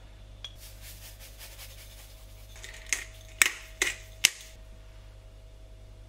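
Salt and pepper being added to a ceramic bowl: a run of faint rapid clicks, then four sharp clinks about half a second apart.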